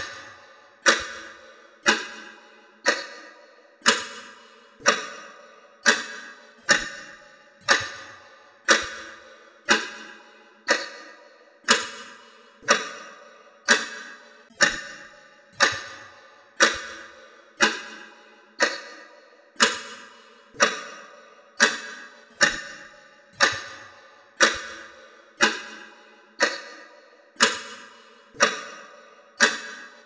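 A clock ticking steadily, about once a second; each tick is sharp with a brief ringing tail.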